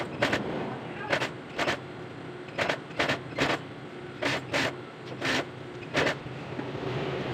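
Juki industrial sewing machine stitching in short bursts of a few stitches at a time, about ten bursts, with a steady motor hum in between as the fabric is turned around a curved seam.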